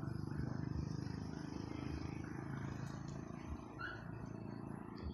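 A cat purring steadily close up, with one brief high chirp near the end.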